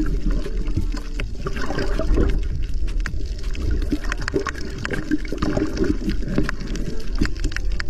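Underwater ambience picked up by an action camera on a coral reef: a continuous low rumble of moving water with many scattered sharp clicks and crackles.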